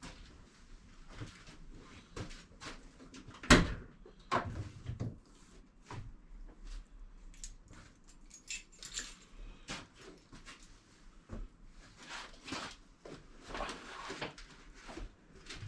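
Scattered clicks, knocks and rustles of things being handled, the sharpest knock about three and a half seconds in.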